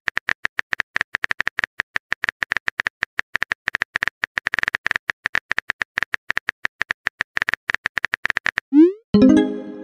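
Rapid, steady clicking of a phone keyboard's typing sound in a texting-story app, as the next chat message is typed. Near the end a short rising blip and a pitched chime mark the message being sent.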